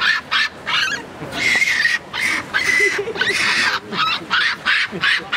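Japanese macaques (snow monkeys) screaming during a fight: a rapid run of short, harsh, high calls, one after another, some rising in pitch.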